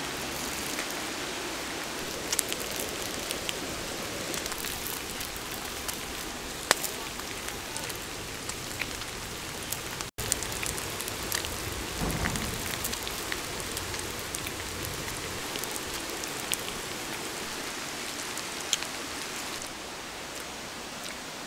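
Pig intestines sizzling on a hot stone slab over a wood fire: a steady hiss with scattered small pops and crackles.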